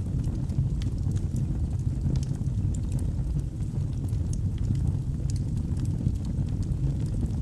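Wood fire burning in a fireplace: a steady low rumble of flames with irregular sharp crackles and pops, a few each second.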